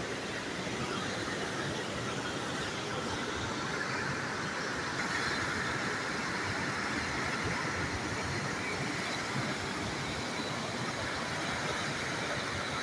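Steady rushing of a fast, swollen mountain river running close by, its flow raised by rain upstream.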